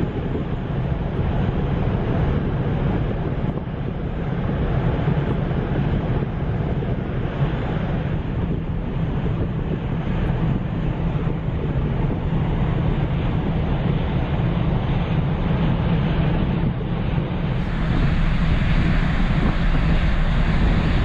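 Steady low engine noise of the ferry Ishikari under way, with wind buffeting the microphone on the open deck and water rushing along the hull. About three seconds before the end the hiss in the upper range grows brighter.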